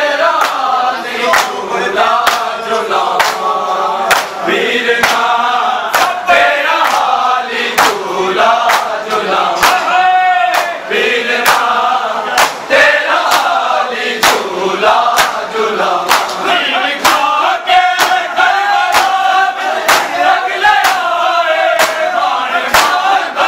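A crowd of men chanting together while beating their bare chests in unison in Shia Muharram matam. The sharp slaps land about every three-quarters of a second.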